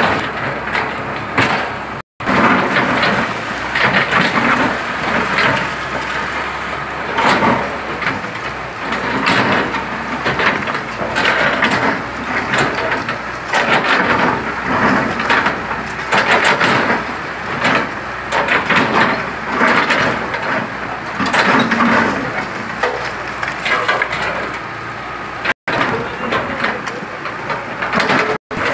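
Hyundai wheeled excavator demolishing concrete and brick-block walls: repeated crashing and crumbling of breaking masonry and falling rubble, over the steady rumble of the machine's engine.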